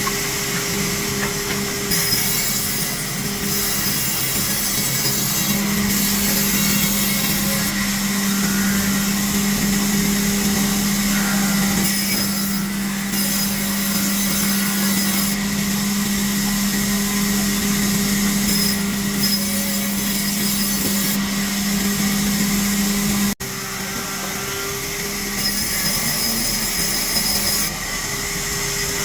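Sawmill resaw machine running with a steady motor hum while its blade cuts through timber, a loud hissing rasp that comes and goes as pieces pass through, with a brief break about 23 seconds in.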